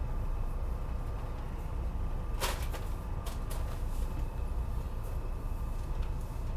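Steady low rumble inside a SEPTA regional rail passenger car, with a faint steady whine above it. A quick run of sharp clicks and rattles comes about two and a half seconds in.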